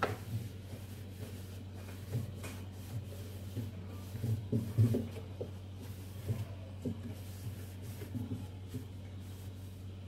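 Dry cloth wiping and rubbing the plastic inner walls and shelf rails of a refrigerator, with irregular light knocks and bumps, the loudest about five seconds in. A steady low hum runs underneath.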